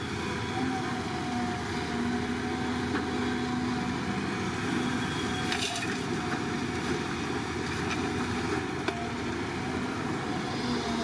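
Excavator's diesel engine running steadily at work, with a couple of sharp knocks, one about five and a half seconds in and one near nine seconds.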